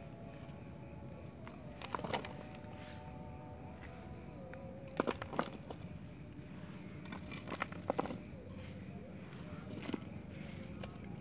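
Crickets chirping steadily in a fast, high trill. A few light knocks and scrapes come as loose soil is pushed by hand over a stone slab.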